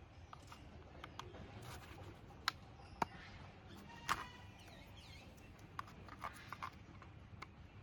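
Scattered sharp clicks and taps of hard plastic toy-car parts being handled, as a red plastic wheel is fitted toward its metal axle on the toy car body. The loudest clicks come about two and a half, three and four seconds in, the last with a brief ring.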